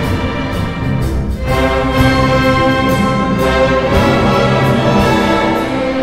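Symphony orchestra playing a medley arrangement: woodwinds, brass and violins together in sustained chords that change every second or two.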